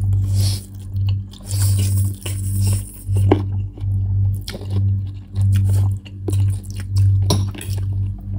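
Eating spicy ramen noodles: chewing and slurping, with short clinks of a fork against the bowl. Underneath is a steady low beat from background music, repeating a little under twice a second.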